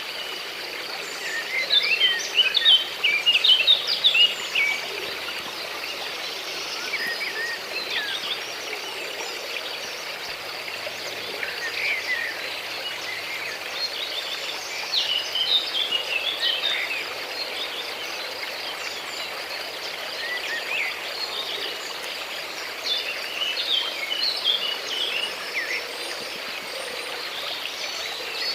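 Outdoor nature ambience: small birds chirping and twittering in scattered bursts, the busiest a couple of seconds in, over a steady background hiss.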